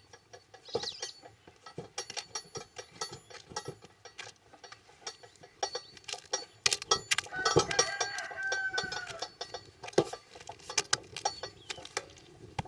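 A chicken gives one drawn-out call about two thirds of the way through, over a string of sharp clicks and knocks.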